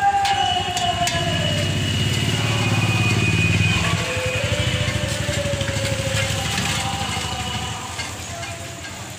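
A motor vehicle engine running close by, a low pulsing drone that comes in about a second in and fades near the end, over general street noise.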